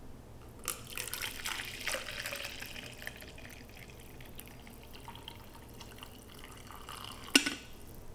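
Coffee poured from a glass coffee-maker carafe into a cup: a steady stream of liquid starting about a second in, followed by a single sharp knock near the end.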